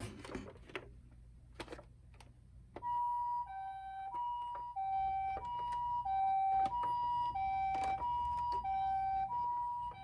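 Toy ambulance's electronic two-tone 'pii-poo' siren, Japanese ambulance style, alternating evenly between a high and a low note. It starts about three seconds in, after a few light plastic handling clicks.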